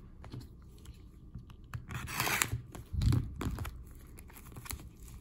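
A sealed box of hockey cards being opened by hand: its plastic wrap tearing and crinkling, with a burst of tearing about two seconds in and a low thump of the cardboard box about three seconds in, among small handling clicks.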